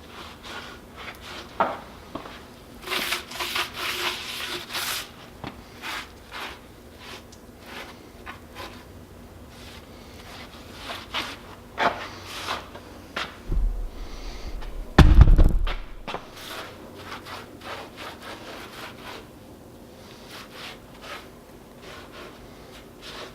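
Irregular scraping and rubbing strokes as concrete is cleaned off the tops of concrete-filled workbench posts, knocking down the high spots. A single heavy thump about 15 seconds in.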